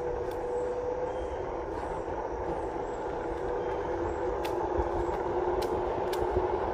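Onewheel electric board's hub motor whining steadily over the rumble of its tyre rolling on asphalt. The whine drops to a lower pitch about four seconds in, and a few sharp ticks come through.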